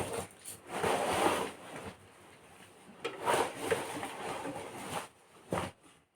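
Rustling and handling noises in bursts of a second or two, as of packaging being opened and items being moved, with a short knock about five and a half seconds in.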